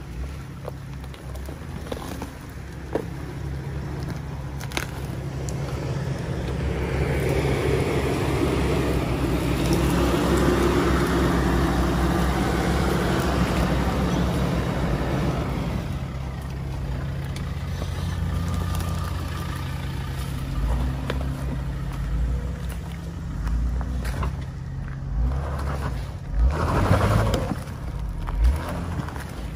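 Four-wheel-drive engines running at low speed as a Jeep Wrangler Rubicon crawls up a rutted dirt track. The sound builds to its loudest around the middle and eases off, with a few short louder bursts near the end.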